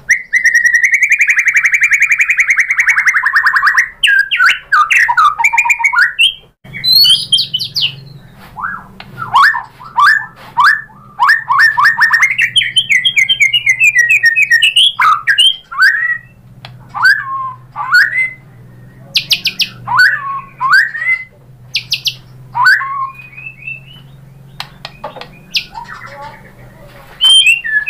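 White-rumped shama (murai batu) singing loudly, a varied song of a long buzzy trill, then rapid runs of notes, rising and falling whistles and sharp high clicks, the full repertoire a shama in top singing form (gacor) pours out.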